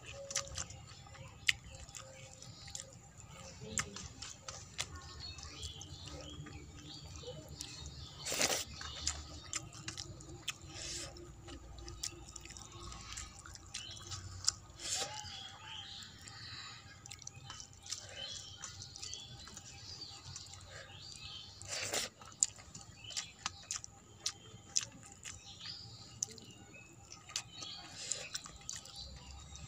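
Eating rice by hand from a stainless steel plate: fingers mixing and scooping rice against the metal, with wet chewing and mouth clicks. Scattered small sharp clicks, two louder ones in the middle stretch.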